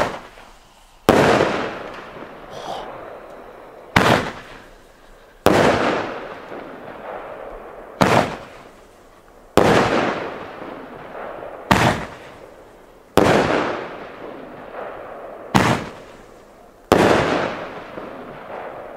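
Gaoo Jupiter X Black roman candle firing five shots about four seconds apart. Each shot is a sharp launch report, then about a second and a half later the shell bursts in the air with a crack that trails off.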